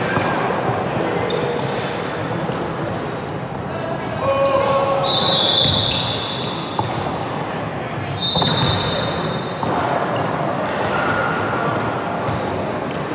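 A basketball game in an echoing sports hall: the ball bouncing on the court, with voices of players and spectators. Two high-pitched squeaks, from sneakers on the court, stand out in the middle.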